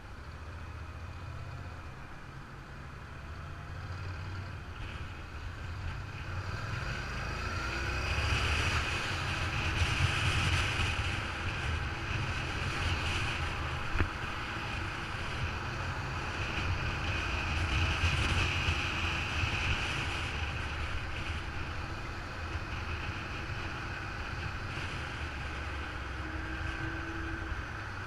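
Motorcycle engine rising in pitch as the bike accelerates away, then running steadily at speed, with wind rushing over the microphone.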